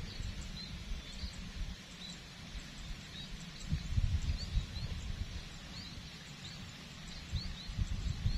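Short, high bird chirps repeating every second or so, over an uneven low rumble that swells about four seconds in and again near the end.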